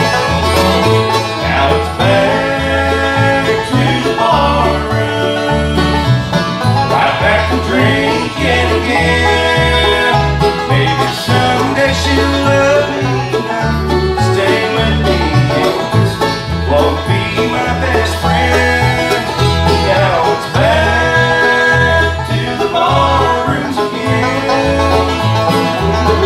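Live bluegrass band playing: banjo, mandolin, acoustic guitar and fiddle over an upright bass line that steps from note to note in a steady pulse.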